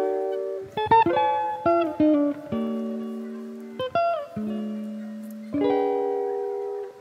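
Background music: slow plucked guitar chords and single notes, each left to ring and fade before the next.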